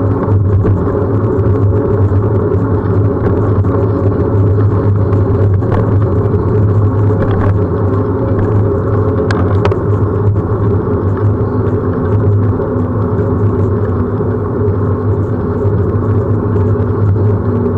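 Steady loud rumble of riding along an asphalt road on a moving bicycle camera: wind on the microphone and tyre noise, with a low hum running under it.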